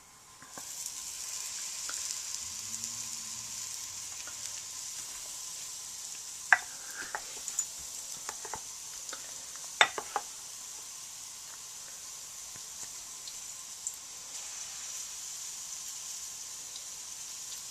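Pancake batter sizzling steadily on a hot skillet, the hiss coming up about half a second in. Two sharp clicks cut through it, around six and ten seconds in.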